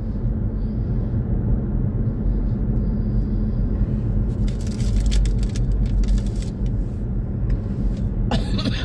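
Car cabin noise while driving: the engine and tyres make a steady low rumble on the road. A short, sharper sound comes near the end.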